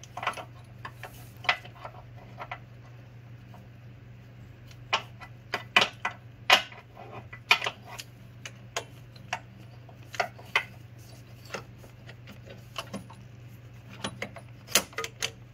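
Belt tensioner assembly on a Mazda 2.5L four-cylinder engine being wiggled and pulled free of its mount by hand: irregular metallic clicks and knocks, coming in clusters around the middle and again near the end.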